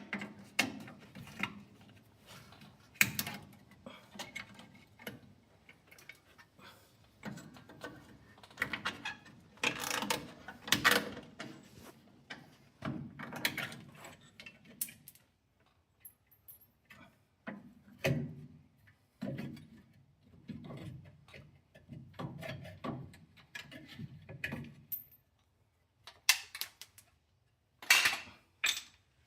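Metal tools and drum brake hardware clicking and clinking irregularly as the old brake springs are worked off, with sharp metal knocks now and then.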